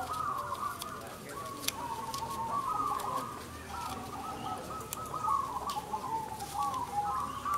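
Many caged zebra doves (perkutut) cooing at once, their overlapping rolling coos running on without a break. A few sharp ticks are scattered through.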